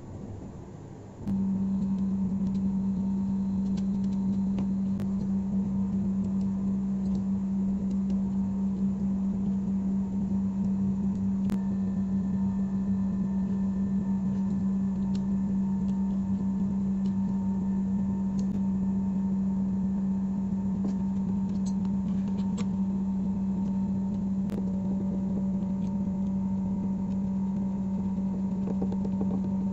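A steady low hum that starts abruptly about a second in and holds level throughout, with a few faint clicks on top.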